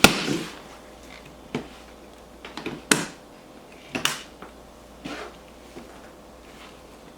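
A series of sharp clicks and knocks, roughly one a second, the first the loudest: something being handled and worked open.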